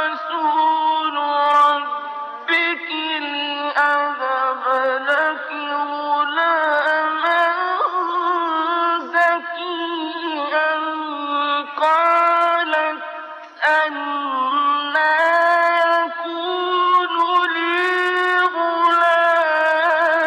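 A man's voice in ornamented Quran recitation in the mujawwad style, drawing out long held notes that waver and glide in pitch. He breaks off briefly for breath about two seconds in and again near the middle.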